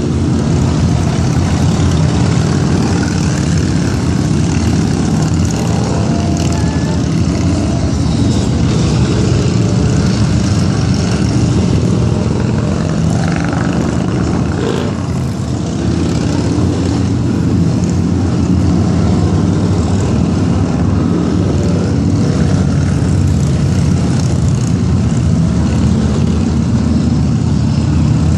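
Motorcycles and cars passing close by on a road in a steady stream, their engines running in one continuous rumble.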